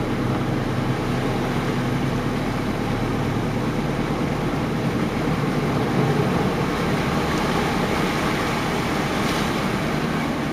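Pickup truck engine running steadily as the truck drives through deep flood water, with the rush and slosh of water pushed aside by the truck.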